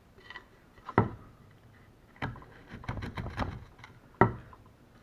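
A freshly sharpened wood chisel pushed by hand through a piece of wood, peeling off shavings smoothly. There are two sharp knocks, about a second in and near the end, with a crackling run of clicks and scrapes between them.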